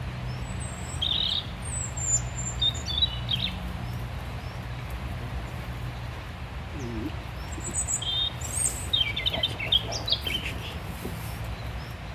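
Small songbirds chirping in two short bouts of quick high calls, about a second in and again about eight seconds in, over a steady low background hum.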